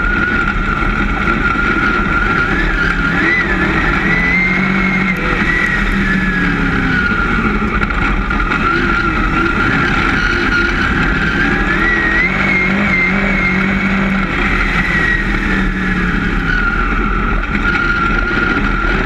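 Dirt-track race car engine running hard, heard loud from inside the cockpit, its pitch rising and falling twice about ten seconds apart as the car works around the track.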